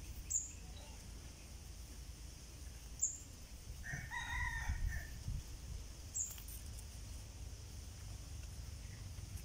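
A rooster crows once, about four seconds in, for a little over a second. A short, high, falling chirp repeats about every three seconds over a steady low rumble.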